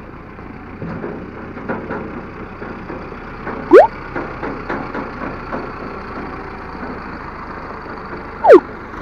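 Steady engine noise from a motorcycle and a tractor running close by on a gravel road, with a few small knocks. Two loud sound effects stand out, added in editing as an on-screen banner slides in and out: a quick rising whistle-like sweep about four seconds in and a quick falling sweep near the end.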